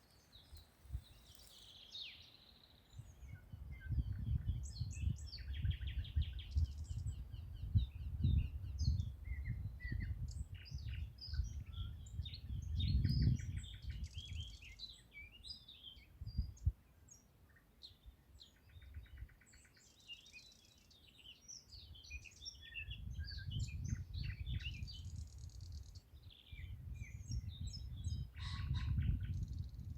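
Several songbirds singing and chirping together, with many short high notes and a few rapid trills overlapping. A low rumble comes and goes underneath, strongest from about four to sixteen seconds in and again near the end.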